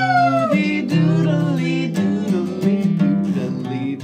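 Instrumental break of a country children's song: acoustic guitar strumming chords with a melody line over them. The tail of a rooster's crow slides down in the first half second.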